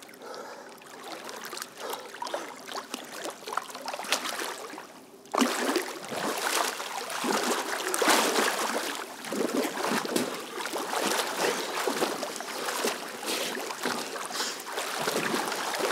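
Water splashing and churning as two swimmers grapple in a swimming pool, one breaking free of the other's hold in a lifeguard release drill. Light water sounds at first, then about five seconds in the splashing turns suddenly loud and dense, with many irregular splashes.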